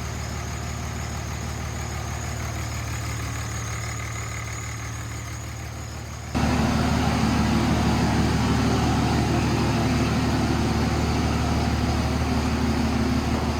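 Diesel pickup truck engine idling steadily. About six seconds in, the sound suddenly becomes louder and fuller, then holds steady.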